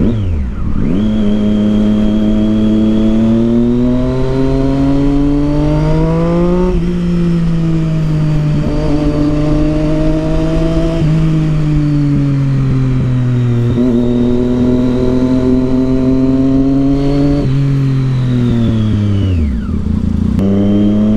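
Triumph Street Triple 675's inline three-cylinder engine, breathing through a loud Yoshimura aftermarket exhaust, under way. The engine note rises and falls with the throttle through several gear changes, drops steeply near the end, then picks up again.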